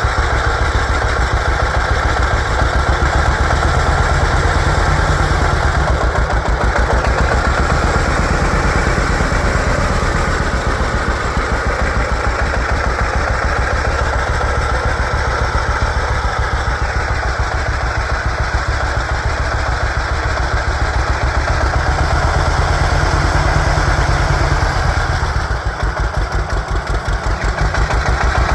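A 1950 John Deere Model A's two-cylinder engine running, with a steady stream of even firing pulses. Near the end the pulses slow and the sound drops for a couple of seconds, then picks up again.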